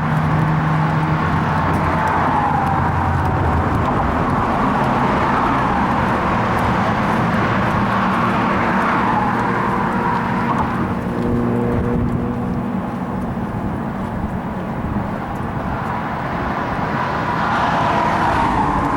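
Car driving: steady engine and road noise, with the engine's pitch shifting now and then.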